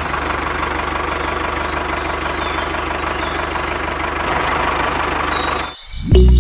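Tractor engine idling steadily with a fast, even chug, cutting off suddenly near the end.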